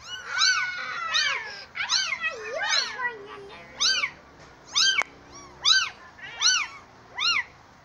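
Kittens meowing over and over in short, high-pitched, rising-and-falling cries, about one every half second to second. A single sharp click about five seconds in.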